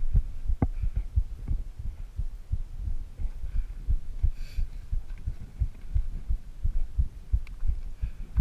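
Low, irregular thumps and rumble hitting the microphone, several a second, with faint higher sounds in the background.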